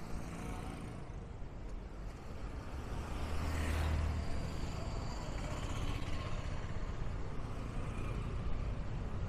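Street traffic: a steady low rumble of motor vehicles, with one vehicle passing close about three to four seconds in.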